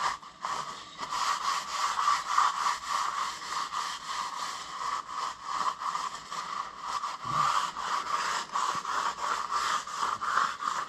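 Repeated rubbing and scraping strokes of a rag wiping oil off a milling machine's cast-iron table.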